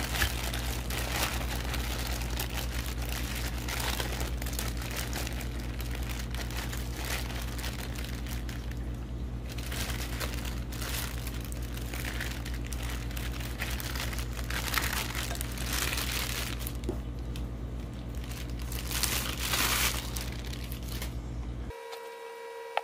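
Thin clear plastic bag crinkling and rustling in irregular bursts as it is handled and pulled back off a bowl of food, over a steady low electrical hum. Near the end the crinkling and hum stop and a steady electronic beep tone begins.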